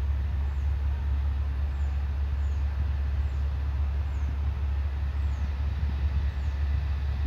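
Steady low rumble and hiss of outdoor background noise, with a faint high falling chirp about once a second.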